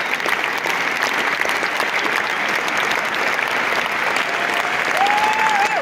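Concert hall audience clapping steadily after the performance, a dense even patter of many hands. Near the end a single held call from someone in the crowd rises above the clapping for under a second.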